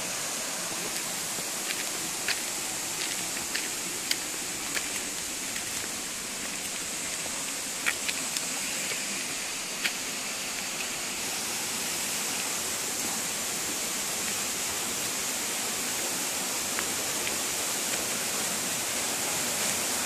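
Steady rushing of a waterfall and rocky stream, growing a little louder in the second half. A few sharp ticks sound over it in the first half.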